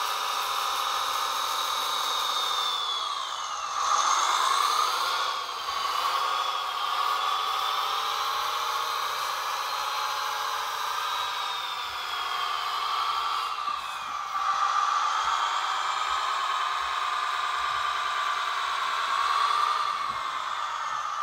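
A 1/16-scale Wedico DAF 8x8 radio-controlled truck driving, its drive a steady whine that rises and falls in pitch as it speeds up and slows down, louder about four seconds in and again about fifteen seconds in.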